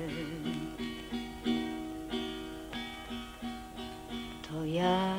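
Instrumental break in a song: a guitar plucks a slow melody, one note about every half second. A sung note with vibrato dies away at the start.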